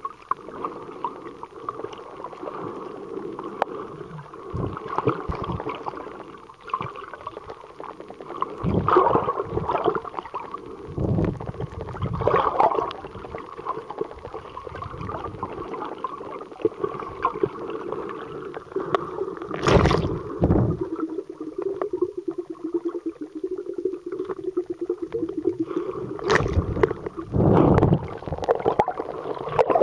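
Underwater sound from a snorkeler's camera: muffled gurgling and water rushing over the microphone, over a wavering hum, with several louder whooshes; the strongest comes about twenty seconds in.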